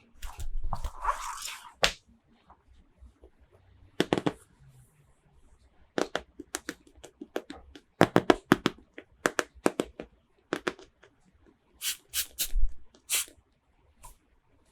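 Toy packaging and small plastic toy pieces being handled. A crinkling, tearing rustle in the first two seconds is followed by a string of sharp plastic clicks and taps, coming in quick runs in the middle and again near the end.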